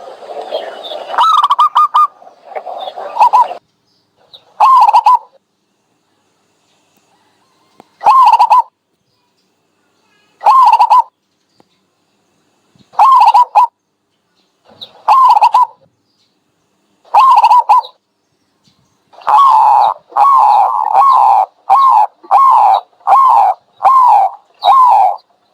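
Dove calling: short, bending calls repeated every two to three seconds, breaking into a quick run of about eight calls in a row near the end. The opening few seconds hold a jumble of overlapping calls.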